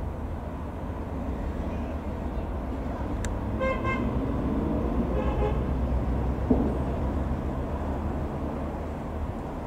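Robin R3000/140 light aircraft's single piston engine and propeller droning overhead, swelling towards the middle and then easing off as it passes. Two short pitched tones sound about a second and a half apart.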